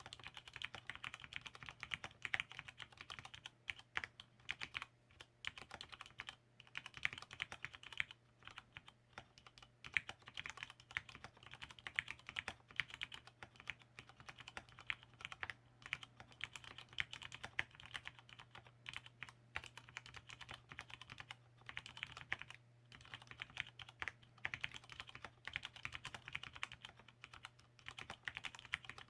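Continuous fast typing on an ABKO AR87 aluminium mechanical keyboard with lubricated Cherry MX Red linear switches and lubricated stabilizers: a dense, irregular run of keystroke clacks with short pauses now and then.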